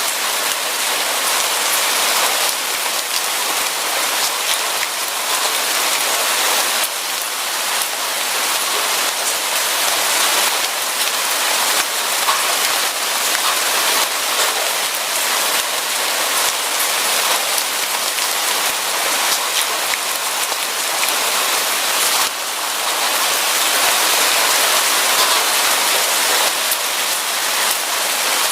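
Steady rain falling, a dense even hiss of drops, shifting slightly in strength a few times.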